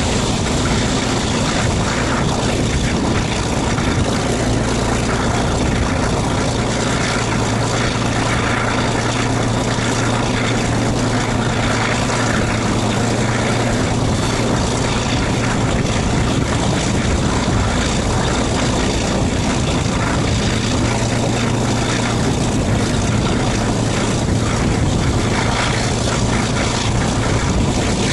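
Class 42 Warship diesel-hydraulic locomotive D832 'Onslaught' working steadily under power on its one remaining Maybach engine, a steady engine drone with a constant rush of wind and running noise. This is the point where the engine was failing, with an unhealthy exhaust.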